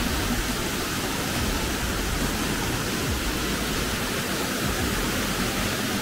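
Fast, shallow mountain stream rushing over stones in a steady, even rush of water.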